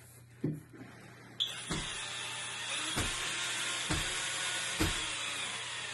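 Cordless drill-driver running steadily on a low torque setting, driving bolts into a door-lock deadbolt; it starts about a second and a half in, with a few light knocks along the way.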